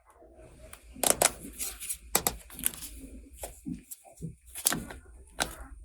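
Small toy pieces of a makeup and beauty salon playset being handled: a quick run of sharp clicks and taps with light rustling, as in toy-unboxing ASMR.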